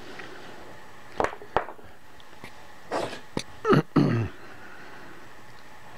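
Handling noises from a steel bolt and dial caliper: two light clicks about a second in. Around three to four seconds in comes a short cluster of louder noises that includes a brief non-speech vocal sound from the person, like a cough or sniff.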